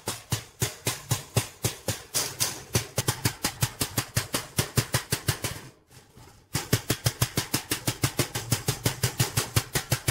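Small hammer striking the steel frame and expanded-metal mesh of a grille, a quick even run of light metallic blows about four to five a second, hammering the bent metal straight. The blows break off briefly about six seconds in, then resume.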